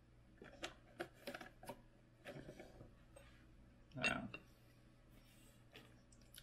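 Light clicks and knocks of a quarter-inch aluminium 3D-printer bed plate being handled on a wooden workbench, with one louder clunk about four seconds in as the plate is set down on its black mounting plate.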